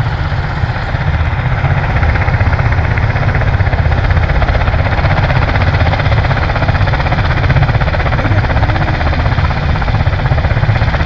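USMC MV-22 Osprey tiltrotors running on the ground during start-up, a loud steady rumble of turboshaft engines and turning prop-rotors that firms up slightly after the first couple of seconds.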